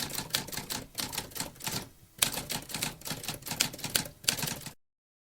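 Typewriter keys clacking in a quick, irregular run of strikes, with a short pause partway through. The clacking stops abruptly near the end.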